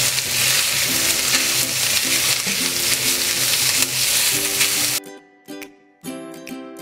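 Chicken mince frying in oil with onion and garlic in a nonstick frying pan, sizzling as it is stirred with a spatula. The sizzle cuts off suddenly about five seconds in, leaving light plucked-string background music, which also plays faintly under the sizzle.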